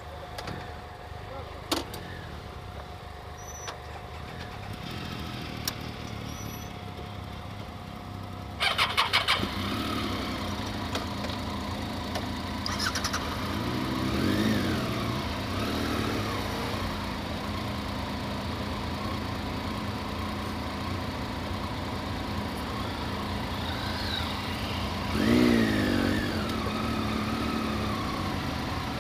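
Adventure motorcycle's engine starting about nine seconds in with a quick burst of pulses, then running as it rides off on a dirt track. The revs rise and fall twice.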